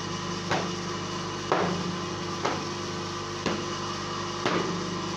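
A cloth rag slapped down on a perforated steel table about once a second, each stroke a quick swish ending in a sharp slap. Under it runs a steady machine hum.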